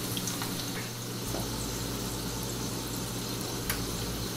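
Crushed garlic cloves frying in hot oil in a small saucepan: a steady sizzle and bubble as they turn golden. A low steady hum runs underneath, and there is one faint click near the end.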